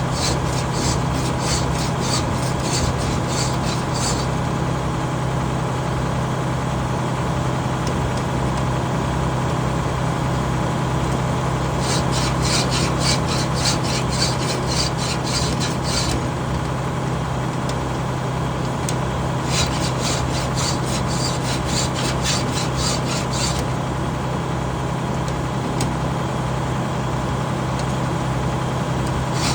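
A hand file sharpening saw teeth, in three bouts of quick rhythmic strokes of about four seconds each: one at the start, one about twelve seconds in, and one near twenty seconds in. A steady low engine hum runs underneath throughout.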